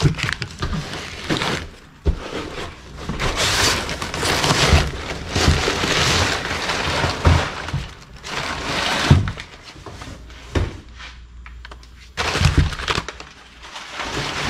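Packaging being torn open and pulled away by hand: cardboard and bubble wrap crackling, ripping and rustling in irregular spells, with a few dull knocks.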